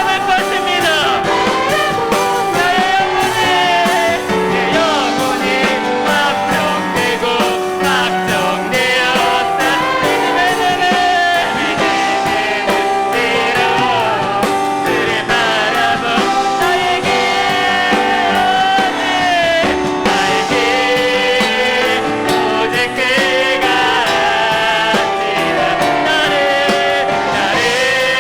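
Live worship band playing a praise song: singers over piano and drums.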